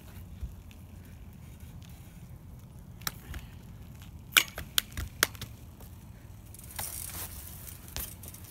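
BMX bike rolling backwards on asphalt through a fakie wall-tap, with a few sharp taps and knocks as the rider's hand slaps the cinder-block wall, the loudest about four and a half seconds in.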